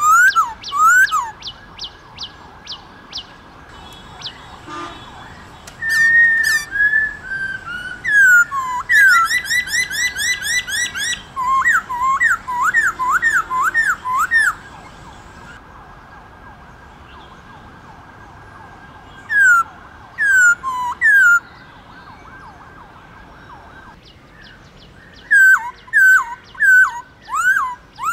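Black-throated laughingthrush singing: loud whistled phrases of quick swooping notes, rising and falling, in bursts with pauses of a few seconds between. In the longest burst the notes come fast, about four a second.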